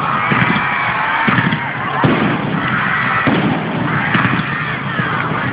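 Fireworks going off: a series of bangs about a second apart, over the voices of a crowd.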